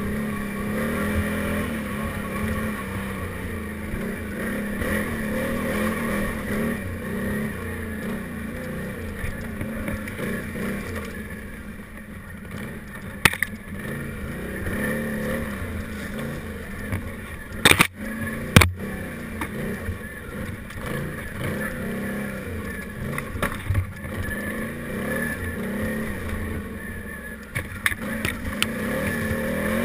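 Can-Am Renegade 800 XXC ATV's V-twin engine running with its throttle rising and falling as it rides. A few sharp knocks stand out, one about 13 seconds in and two close together about 18 seconds in.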